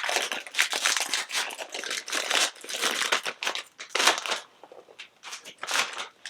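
Crinkly plastic snack bag of Cheetos being handled and opened: dense crinkling for the first few seconds, thinning to scattered sharp crackles near the end.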